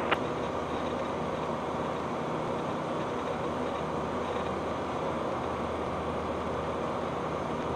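Steady drone of a Flight Design CTSW's Rotax 912 four-cylinder engine and propeller in flight, heard from inside the cockpit.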